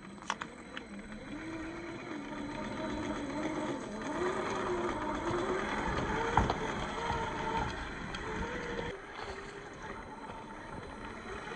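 Traxxas TRX4 RC crawler driving, its 550-size 21-turn brushed motor and drivetrain whining, the pitch rising and falling with the throttle over a rough noise. There is a short knock just after the start and a sharper one a little past the middle, the loudest moment.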